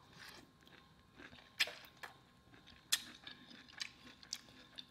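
Quiet close-miked chewing of a mouthful of green beans, with a few sharp clicks about a second and a half apart.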